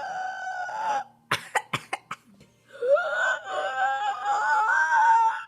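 Two long, high-pitched, drawn-out mock yawns from a child. The first ends about a second in. A few sharp clicks follow, then the second yawn rises in pitch at its start and is held until near the end.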